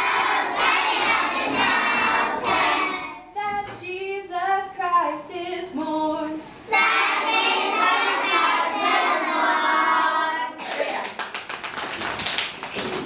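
A classroom of children singing together loudly, with one voice singing alone for about three seconds in the middle before the group comes back in. Near the end the children clap their hands rapidly.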